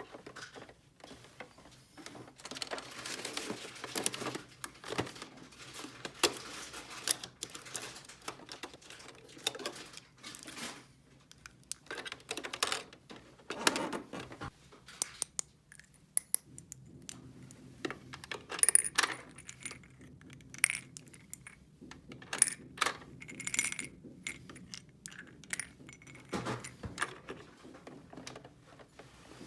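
Small hard plastic toy pieces clicking, tapping and clattering as they are handled and set down, in irregular bursts of sharp taps.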